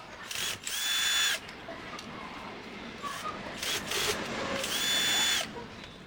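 Small electric screwdriver running in several short bursts, each a steady high whine that winds down as it stops, as screws are driven out while the printer is taken apart. Light clicks and rattles of plastic parts being handled come in between.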